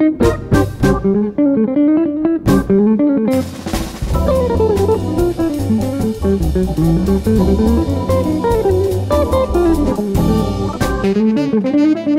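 Background music: plucked guitar melody with bass and a drum kit keeping a steady beat, filling out into a fuller arrangement about three and a half seconds in.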